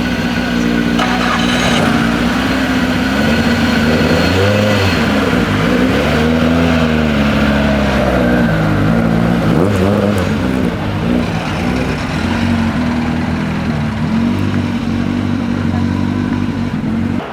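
Ford Escort Mk2 rally car engine revving hard, its pitch rising and falling again and again through gear changes and lifts.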